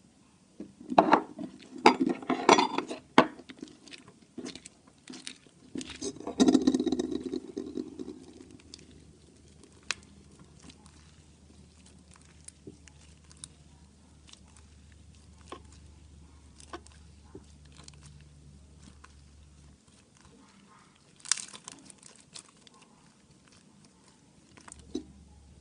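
Sticky white cloud slime being kneaded and squeezed by hand, with bursts of wet squishing, crackling and popping near the start and again briefly later, and scattered small clicks in between.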